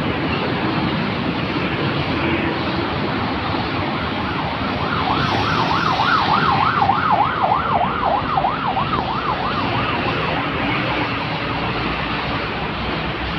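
Steady road traffic noise, with an emergency vehicle's siren in fast yelp mode, sweeping up and down about three times a second, for about five seconds in the middle.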